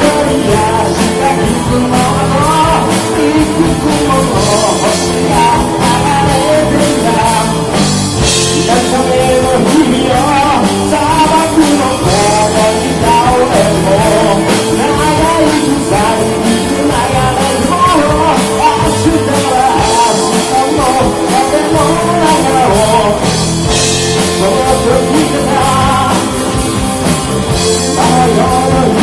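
A live rock band playing a song loudly and steadily, with electric guitars and drums and a melody line over them.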